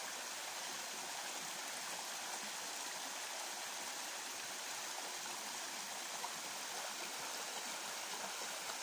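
Small cascade of spring water running steadily over rock steps and splashing into a shallow pool.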